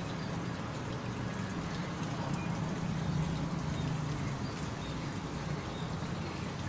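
Low, steady engine hum, growing a little louder around the middle and easing off again, with a few faint high chirps over it.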